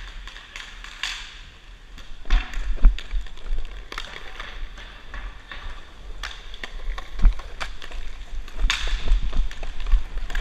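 Inline hockey play heard from a helmet-mounted camera: inline skate wheels rolling on the rink floor with a steady hiss, sharp clicks and taps of sticks and ball, and low thumps, the strongest about three seconds in and again about seven seconds in.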